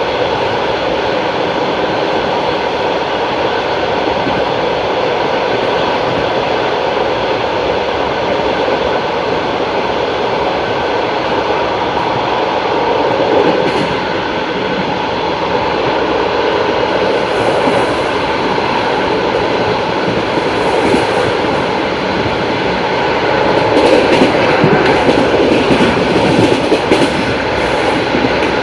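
Passenger train running at speed, its wheels clattering over the rail joints in a continuous rumble. It gets a little louder near the end.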